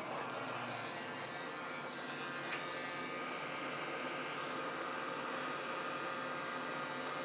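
Hot-air rework station blowing a steady hiss onto a chip to melt the solder under it, so the chip self-aligns on its pads.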